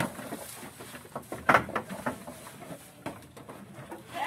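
Rustling and scattered knocks as leafy feed is tipped from a bucket into a wooden trough and goats rummage and feed in it, with one sharper knock about one and a half seconds in.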